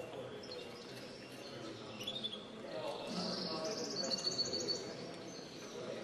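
Caged finches chirping in short, high calls, with a brief trill in the middle, over a low murmur of people talking.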